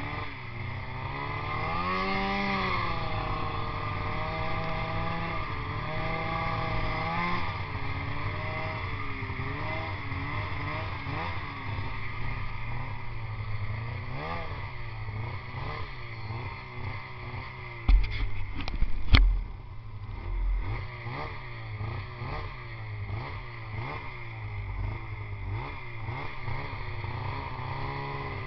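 Polaris snowmobile engine running and revving up and down, with the pitch rising and falling repeatedly as the sled rides over snow. About eighteen seconds in come a few loud thumps, then quicker, shorter revs.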